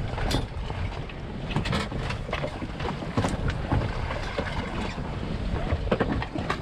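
Wind buffeting the microphone and water lapping against a small fishing boat's hull, with scattered sharp knocks and clicks.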